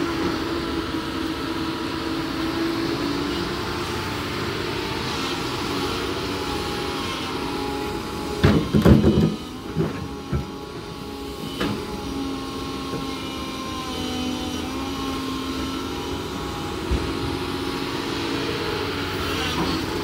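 Doosan DX225LCA crawler excavator's diesel engine running steadily under load, with a whine that shifts in pitch as the machine works. About eight seconds in come a cluster of loud knocks and clatter, with a few single knocks after, as the bucket works soil and rock.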